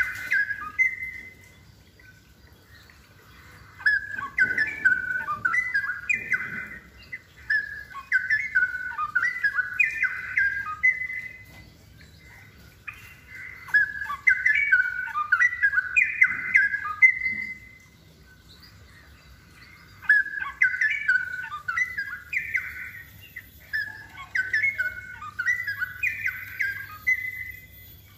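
Straw-headed bulbul (cucak rowo) in full song, giving rapid, varied warbled phrases in repeated bouts of a few seconds, separated by short pauses.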